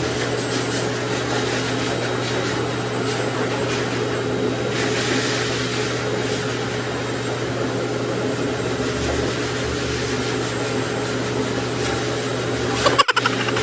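High-velocity pet blow dryer running steadily while drying a wet puppy's coat: an even rush of air over a steady motor hum. A brief break with a few clicks near the end.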